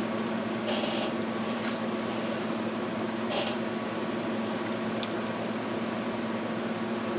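Steady mechanical hum with a few brief, soft hisses.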